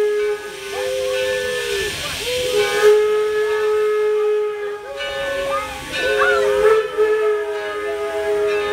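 Steam locomotive getting under way, with steam hissing from its open cylinder cocks. Several long, steady tones start and stop at different times over the hiss.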